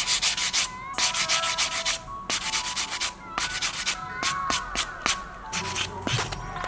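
Sandpaper scraping over a part of a die-cast model motorcycle in quick back-and-forth strokes, several a second, in bursts with short pauses, as old paint and surface are sanded off.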